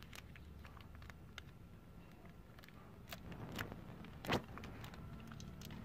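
Faint handling sounds of small engine parts: scattered light clicks and taps as a scooter piston and its piston pin are handled and fitted by hand, with one sharper click about four seconds in.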